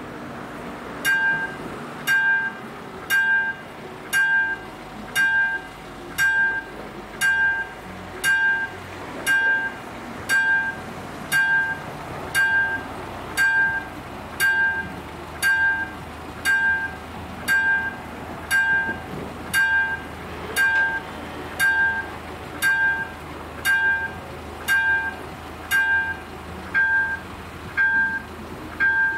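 Railway level crossing warning bell ringing, one strike about every second, starting about a second in, signalling that the crossing is closing for an approaching train. A car's engine runs underneath.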